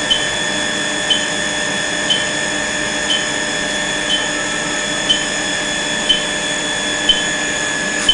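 A brazing machine running through a timed heating cycle: a steady hum with several constant high whining tones, and a short blip about once a second, like a timer counting the seconds.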